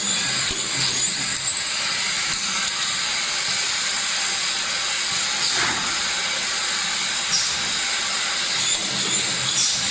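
Automatic six-nozzle cough syrup bottle filling, capping and labeling line running: a steady hiss with a few short, sharp sounds.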